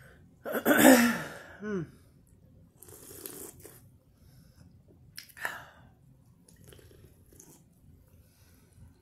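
A woman sneezing loudly about half a second in, with a falling voiced cry, then a few shorter breathy nasal noises.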